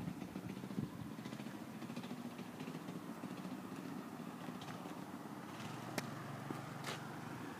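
Faint, steady running of a home-built go-kart's small engine, with a single sharp click about six seconds in.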